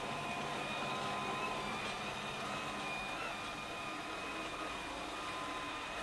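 LG Hom-Bot robot vacuum running, a steady motor and brush whir with a thin, high, constant whine.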